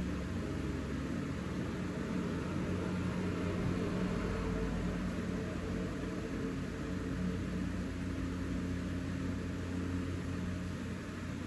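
Wax crayon scratching on paper in short colouring strokes, over a steady low hum.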